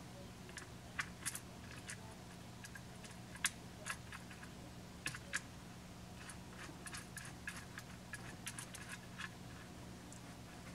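Faint, irregular small clicks and taps of metal parts handled by fingers, a battery cable's terminal and bolt being fitted back onto a battery's positive post, over a low steady hum.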